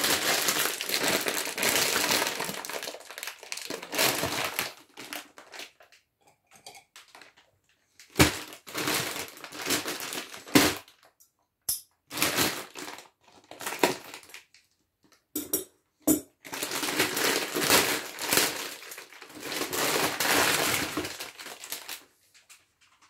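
Plastic packaging crinkling and rustling in four long bursts with quiet gaps between, plus a few sharp clicks and knocks, as the power supply's modular cables are handled and taken out of their wrapping.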